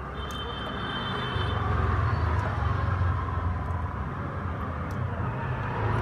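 Passing road traffic: a low rumble under a broad hiss that swells about a second and a half in and eases slightly near the end.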